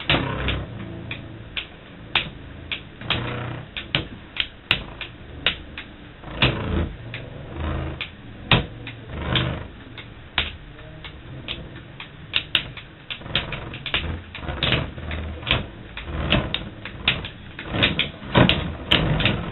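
Two Metal Fight Beyblade spinning tops, Dark Wolf DF145FS and Burn Wolf SW145WD, spinning in a stadium and repeatedly striking each other, giving many irregular sharp clacks over a low whirr.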